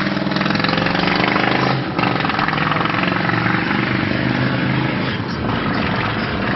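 Loud motorcycle engine running on the first ride after a full teardown and rebuild, its firing pulses steady throughout, with a brief dip in level about two seconds in.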